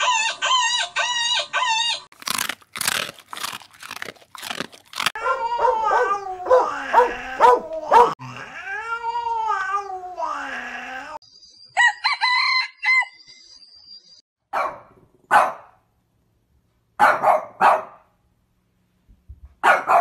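A run of different animal calls, one after another, including dogs barking and a chicken calling.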